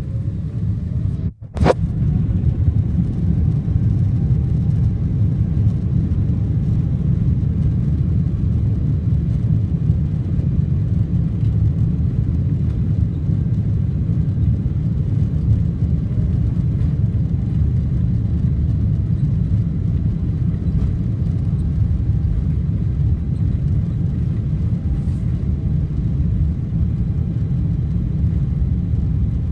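Airliner jet engines and runway rumble heard from inside the passenger cabin during the takeoff run: a loud, steady, low roar. The sound drops out briefly about a second and a half in and returns with a click.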